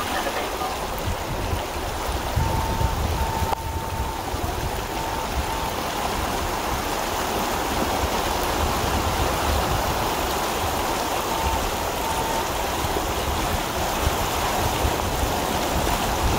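Heavy rain pouring onto a flooded street: a steady rushing and splashing of rain on standing floodwater, with a low, uneven rumble underneath.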